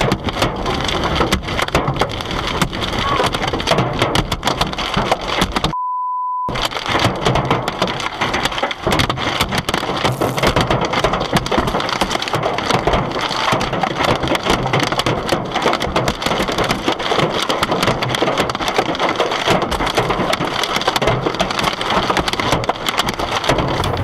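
Hail pelting a car: a dense, unbroken clatter of hailstones striking the body and glass. About six seconds in, all other sound cuts out for half a second under a short, steady censor beep.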